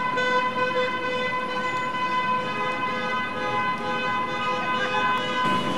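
A steady, unbroken horn-like tone holding one pitch, rich in overtones.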